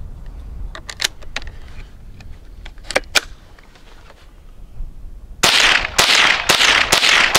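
Henry AR-7 semi-automatic .22 LR rifle firing Winchester Super X rounds in quick succession, about two shots a second, beginning a little over five seconds in. A few light clicks of handling come before the first shot.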